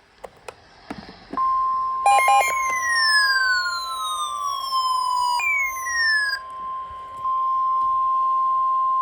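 Emergency alert attention signal: a steady single high tone at about 1 kHz, the NOAA Weather Radio warning alarm tone, starts about a second and a half in and holds on. Over it run siren-like whistles that glide steadily downward in pitch, one lasting about three seconds and a shorter one after it, with a few short beeps at their start.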